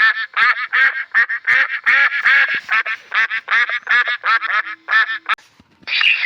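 Duck quacking in a quick run of short calls, about three to four a second, stopping a little over five seconds in. Near the end a different, hissy sound starts.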